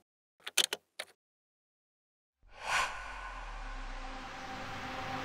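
Cinematic sound design: a few short, sharp electronic glitch bursts, then silence, then a whoosh about halfway through that opens into a steady low drone, slowly growing louder.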